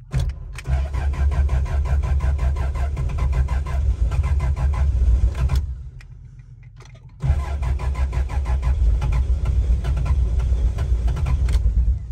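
Starter cranking a cold turbocharged Jeep engine in two long attempts of about five seconds each, with a short pause between; the engine is reluctant to start in the cold.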